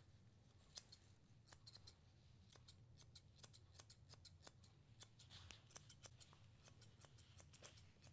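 Faint, quick snips of blending shears cutting through a small dog's coat, coming in irregular runs of several a second.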